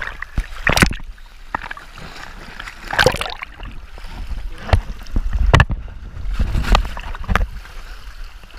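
Sea waves sloshing and splashing around a camera held at the water surface: a low rumble of churning water with irregular sharp splashes every second or so.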